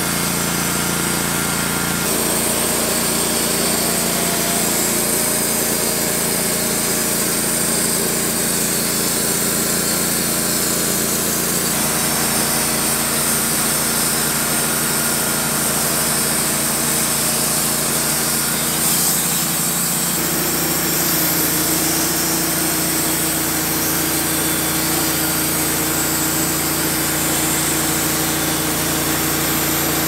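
Wood-Mizer LT15 GO portable bandsaw mill running steadily, its engine under load as the band blade saws a pine log. The engine note shifts a little higher about twenty seconds in.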